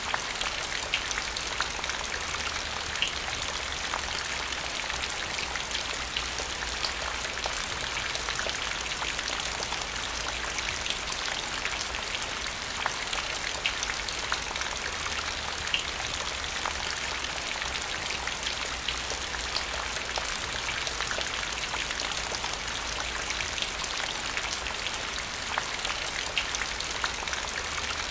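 Rain falling on the ground: a steady hiss with separate raindrops ticking out of it here and there.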